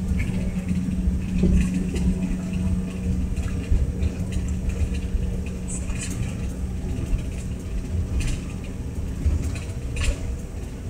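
Steady low rumble of a jet airliner's engines heard from inside the cabin while on the ground, with a constant hum and a few faint clicks.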